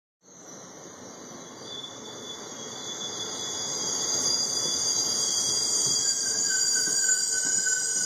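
Amtrak passenger train rolling through the station, a rumble with a steady high-pitched squeal in several tones, growing louder throughout. A lower squeal tone joins about six seconds in.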